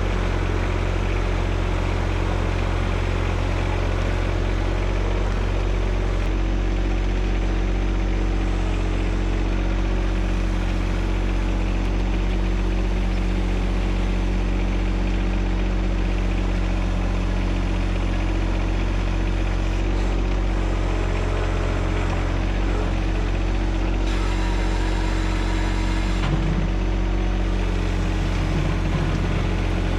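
John Deere 1025R subcompact tractor's three-cylinder diesel engine running at a steady speed.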